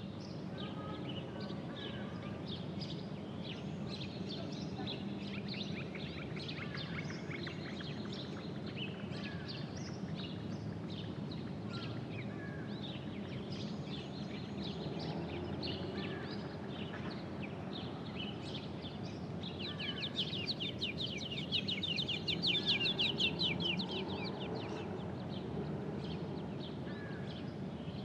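Birds chirping and calling over a steady outdoor background noise. About twenty seconds in, a fast, rapidly repeating bird trill takes over for several seconds and is the loudest sound.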